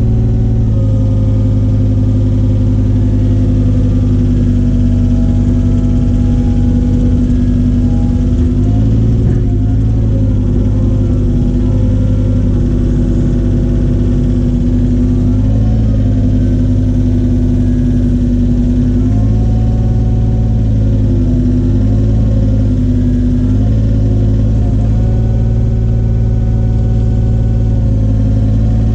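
Cat mini excavator's diesel engine running steadily at a constant speed, with a few brief small dips in pitch.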